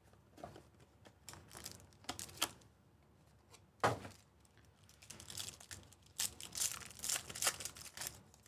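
Hands handling a box of trading-card packs and tearing open a foil card pack, crinkling and crackling. There is a sharp crackle about four seconds in and dense crinkling over the last few seconds as the wrapper is pulled apart.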